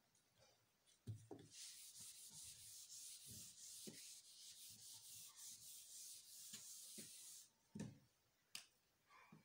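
Hand-held whiteboard eraser rubbed back and forth across a whiteboard, a steady scratchy rubbing lasting about six seconds, followed by a soft thump and a short click near the end.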